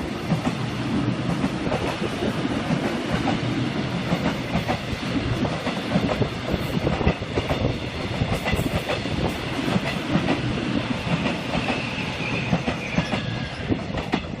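Korail Line 1 electric multiple-unit commuter train passing close by, a steady rumble with its wheels clattering over the rail joints.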